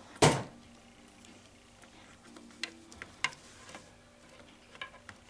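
Plastic action figures being handled: a short rush of noise just after the start, then a few faint, scattered clicks and taps of plastic.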